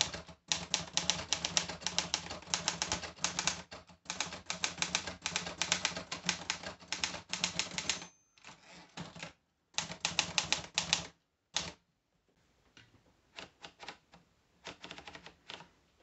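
Olivetti Lettera 33 portable manual typewriter being typed on: fast runs of keystrokes clacking against the platen for about eight seconds, then another burst after a short pause. Fainter, scattered clicks follow in the last few seconds. The keys are typing smoothly, with none sticking.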